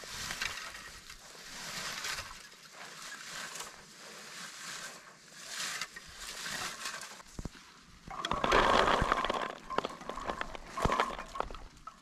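Rustling and crunching of bog shrubs and moss being handled or trodden, with scattered sharp clicks and snaps; the loudest, longest rustle comes about eight seconds in.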